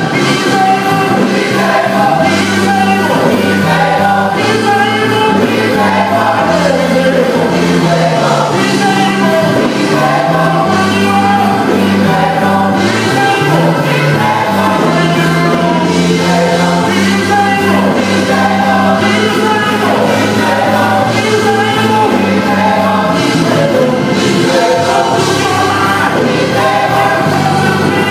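A choir singing a gospel song with instrumental accompaniment, bass notes held and stepping from one to the next under the voices.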